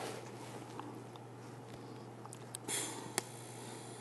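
Quiet workshop room tone: a steady low hum with a few faint clicks and a short rustle about three-quarters of the way through, from a welder handling his helmet, torch and filler rod before striking an arc.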